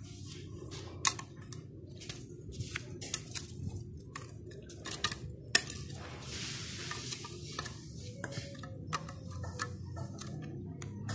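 Garden trowel scraping and tapping moist garden soil around newly planted taro cuttings, with sharp clinks as the blade strikes grit and stones and a longer scrape a little past halfway.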